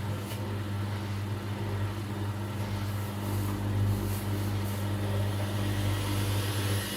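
LG washing machine running with a steady low hum.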